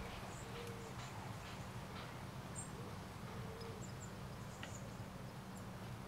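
Faint outdoor ambience: a few brief, high bird chirps scattered over a low steady hum.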